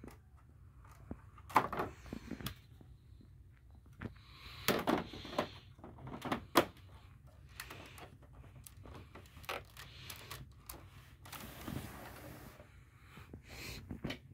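Lego bricks being handled: scattered plastic clicks and a few sharp knocks, the loudest about a second and a half in and again near six and a half seconds. Soft breathing close to the microphone is heard between them.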